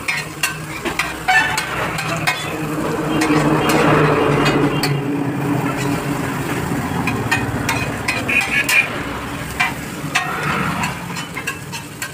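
Noodles and vegetables stir-frying on a large flat iron griddle: a metal spatula scrapes and clacks against the iron over continuous sizzling, with a steady low hum underneath.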